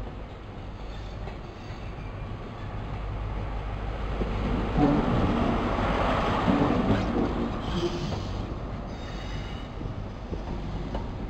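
East Coast InterCity 125 (HST) pulling into the platform: the Class 43 power car's diesel engine grows louder and is loudest about five seconds in as the power car passes close by. It then fades as the coaches roll past, with brief high squeals from the wheels near the end.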